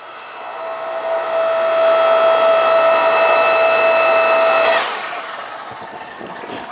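Yardmax YS0552 electric log splitter's motor and hydraulic pump running with a loud, steady whine while the ram is driven, on a test run after its pressure-relief valve (ball, spring and adjustment screw) was rebuilt. The whine cuts off sharply near the end, leaving only a quiet running noise with a few faint ticks.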